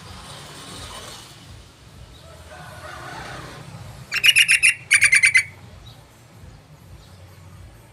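Yellow-vented bulbul (trucukan) calling: two quick bursts of rapid chattering notes about four seconds in, each lasting about half a second.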